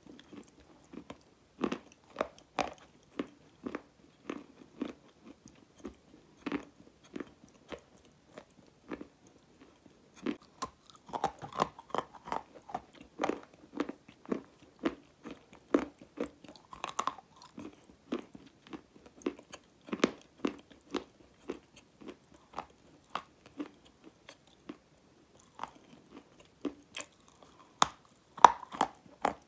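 Close-up crunching bites and chewing of a dry grey chunk of edible clay: short, sharp crunches about one or two a second, busier about halfway through and loudest near the end.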